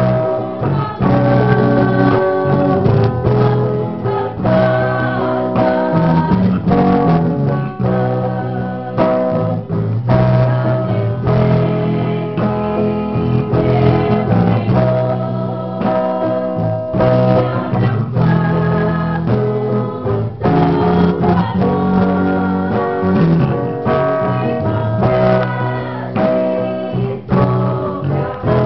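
Gospel music: singing over a guitar accompaniment with a steady bass line.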